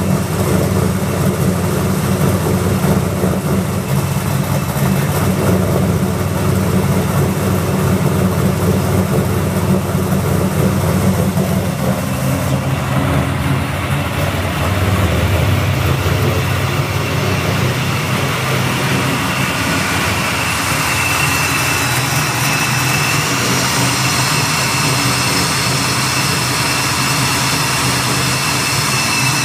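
Pontiac Firebird's 383 stroker LT1 V8 idling steadily, still cold and steaming, heard first at the tailpipe and later at the open engine bay. From about 20 seconds in, thin high whining tones from the front of the engine join the low exhaust sound.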